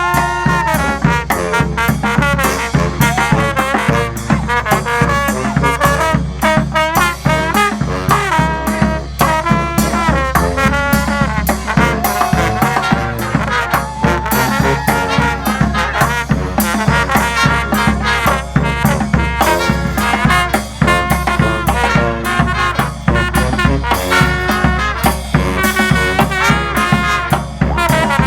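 Street brass band playing live: trumpets and trombones carrying an up-tempo tune over a steady beat.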